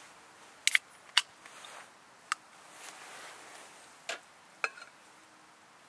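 A handful of sharp metallic clicks and clinks, about six, the loudest two in the first second and a bit: an aluminium drink can being lifted off a steel mesh camp table and set into a stainless can holder.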